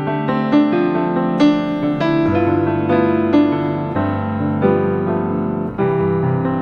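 Background piano music: notes and sustained chords played at a gentle, even pace.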